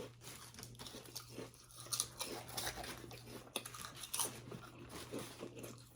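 Close-up chewing and crunching of a sub sandwich and potato chips, with irregular crunches and wet mouth noises.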